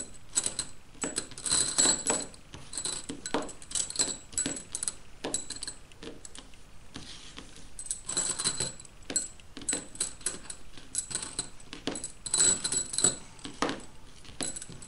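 Large steel nails clinking against one another as they are picked from a heap and laid down in bundles of ten: irregular runs of sharp metallic clicks with a light ring, with a lull about halfway through.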